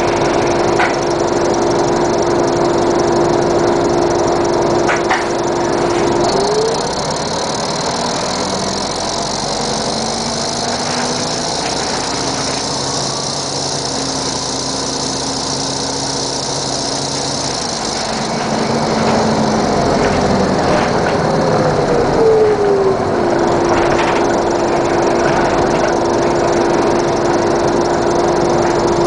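A 1996 NovaBUS RTS bus's Detroit Diesel Series 50 four-cylinder diesel engine idling. A steady whine over it glides up and drops out about a fifth of the way in, while a hiss comes in; about three quarters of the way in the hiss stops and the whine glides back down and carries on.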